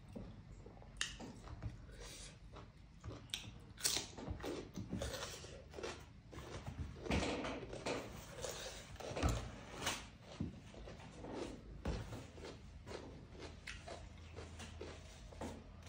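Close-up chewing and eating by hand: irregular wet mouth smacks and clicks, one after another.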